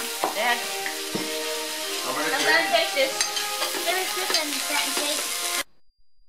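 Food frying and sizzling on an electric gourmet table grill, with pitched background music over it. The sound cuts out suddenly shortly before the end.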